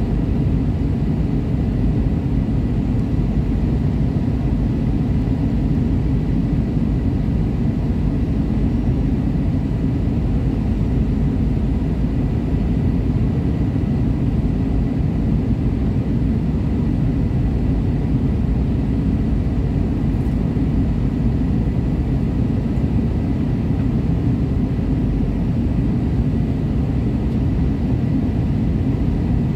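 Airliner cabin noise on the descent to landing: a steady low rumble of jet engines and rushing air heard inside the cabin, with a faint steady high whine.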